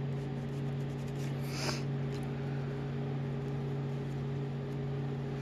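Steady low mechanical hum in the room. About one and a half seconds in there is a brief rustle as the journal's pages and ribbon are handled.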